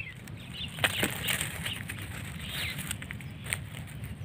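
A freshly caught small snakehead fish (kuravai) flopping and slapping on gravel and dry leaves, making scattered sharp taps and rustles, loudest about a second in.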